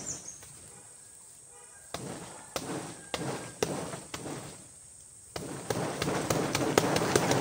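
Bare fists punching the soft, fibrous trunk of a banana tree. A few separate blows come about two seconds in, then a rapid flurry of punches starts near the five-and-a-half-second mark.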